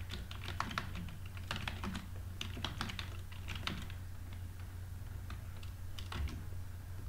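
Computer keyboard typing: a quick run of keystrokes for about four seconds, then a few scattered clicks, over a steady low hum.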